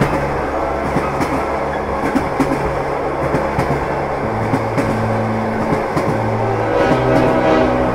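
Diesel locomotive running with a steady low engine hum that drops in pitch about halfway through, and the irregular clicking and clatter of wheels and couplings on the track.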